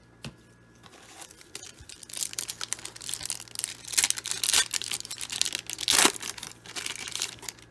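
Foil trading-card pack wrapper being torn open and crinkled by hand: a run of crackling rips and crumples starting about two seconds in, loudest around four and six seconds in.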